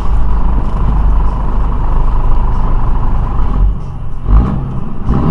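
Semi truck cab interior noise at highway speed: a steady low rumble of the diesel engine and road, with a brief louder surge about four seconds in.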